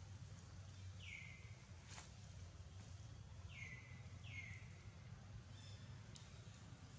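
Faint outdoor quiet with three short chirps that slide down in pitch, one about a second in and two close together just past the middle, and a couple of soft clicks over a low steady hum.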